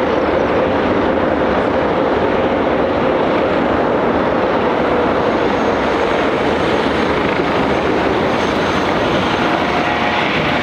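Jet engines of a Boeing 787-9 airliner passing close by: a loud, steady rushing noise with a faint drone underneath that sinks slowly in pitch.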